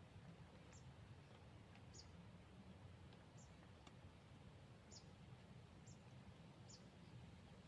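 Near silence outdoors, with faint, short, high-pitched chirps repeating about once a second over a low steady background hum.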